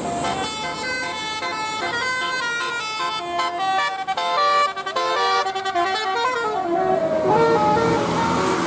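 A bus 'telolet' musical horn playing a quick tune of short stepped notes, with one note sliding down in pitch near the end.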